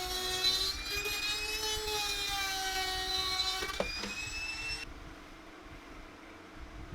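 A small electric power tool's motor whining, its pitch sagging and rising as the load changes, with a sharp click a little before it cuts off about five seconds in; a low steady hum remains.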